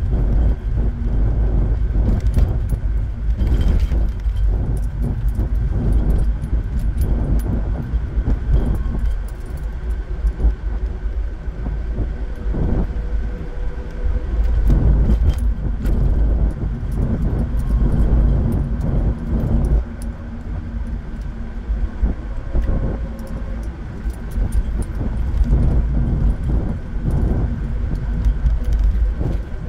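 Car cabin noise while driving: a steady low rumble of engine and tyres on the road, with frequent small rattles and clicks throughout.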